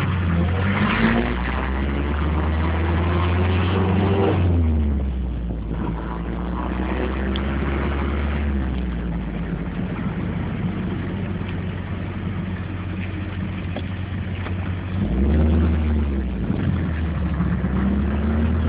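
Triumph Spitfire's four-cylinder engine heard from the cockpit while driving, pulling with the revs climbing over the first few seconds, dropping at a gear change, then running steady at cruise. The revs rise and fall again briefly about fifteen seconds in.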